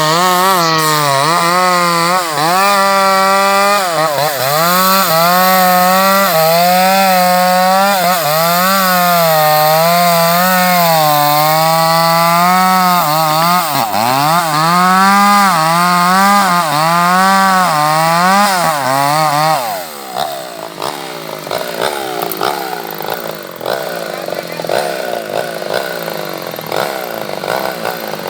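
Chainsaw engine running at high revs while cutting wood, its pitch wavering up and down as the chain loads and frees in the cut. About two-thirds of the way through, the revs drop suddenly and it runs lower, quieter and rougher, then it revs up again at the very end.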